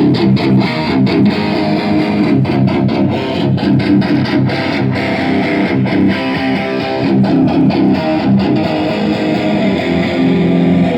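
Electric guitar played loud with distortion, dense low riffing that stops suddenly at the end.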